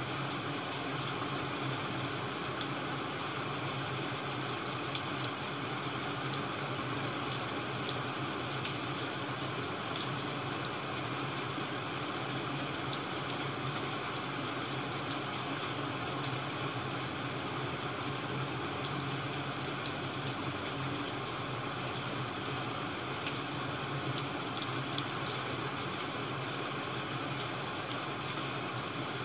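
Crackling wood fire ambience: a steady hiss with many small scattered pops and crackles.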